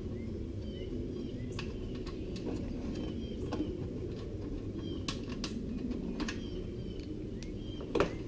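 Scattered light clicks and taps from undoing a wing nut and handling the riding mower's front hood, over a steady low hum with faint bird chirps.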